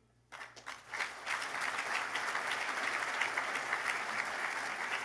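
Audience applauding: after a brief hush the clapping starts a moment in, swells within the first second and then holds steady.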